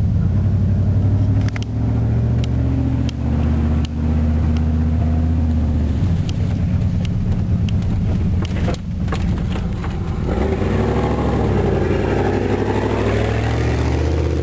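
1993 Chevrolet Silverado K1500's 305 cubic-inch V8 running as the truck drives slowly over a rough track, heard from inside the cab, with several sharp knocks and rattles from the cab. About ten seconds in the sound changes, turning noisier and more wavering.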